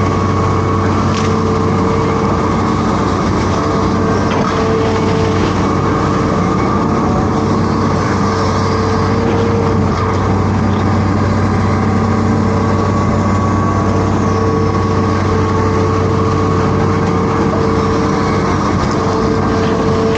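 Amphibious Hitachi Zaxis 210F excavator's diesel engine running steadily under load. A higher hydraulic whine rides over it and drops away for a few seconds midway.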